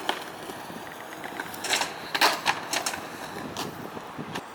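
Skateboard rolling on pavement with a run of sharp clacks and knocks of the board about two seconds in, over a steady hiss.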